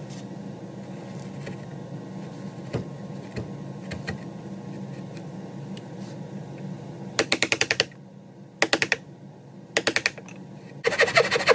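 Wooden mallet striking a chisel in three short runs of fast, sharp taps, about a dozen blows a second, cutting a rope groove into a wooden strip. A few lone knocks come before them over a steady low hum, and a louder continuous sound starts just before the end.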